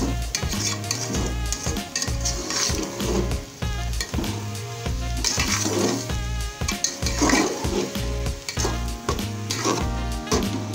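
A metal spoon stirs and scrapes grated carrots and sugar around an aluminium pot, with a frying sizzle, as the carrot halwa is sautéed until the sugar melts. Background music with a steady bass beat runs throughout.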